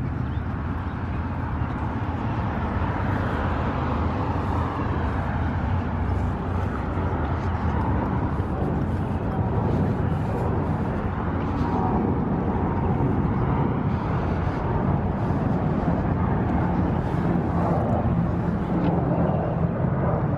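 Road traffic going by: a steady low sound of cars and engines passing, with no single sharp event standing out.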